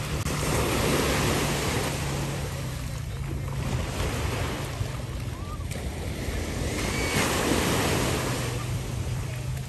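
Small waves breaking and washing up on a sandy shore, the rush of surf swelling and ebbing every few seconds.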